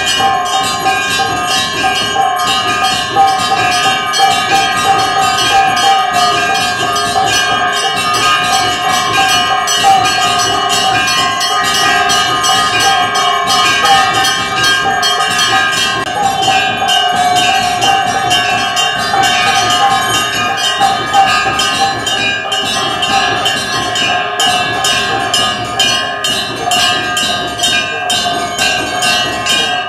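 Puja bells ringing continuously, struck rapidly over and over so that several ringing tones hold steady without a break.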